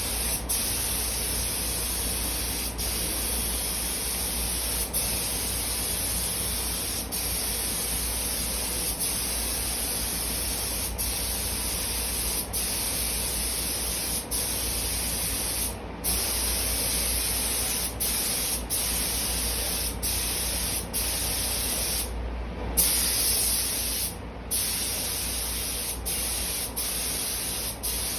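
Compressed-air paint spray gun spraying in steady passes, a continuous hiss broken by brief pauses every second or two, with longer breaks about 16 and 22 seconds in. A steady low hum runs underneath.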